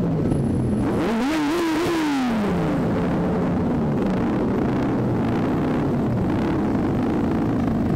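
Sport motorcycle engines running at low parade speed; about a second in, one is revved up and down several times in quick succession, then they settle back as the bike rolls almost to a stop.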